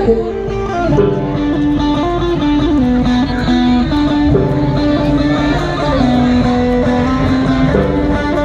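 Amplified sape, the carved Dayak boat lute, plucked in a melody of held notes that step between pitches, played through a small portable amplifier.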